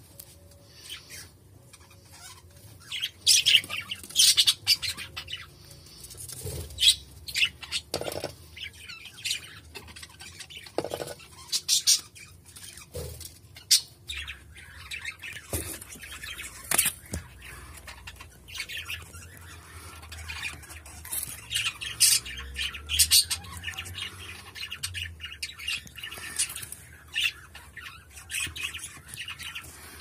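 Cockatiels giving short, harsh squawks and chirps at irregular intervals, some of them loud.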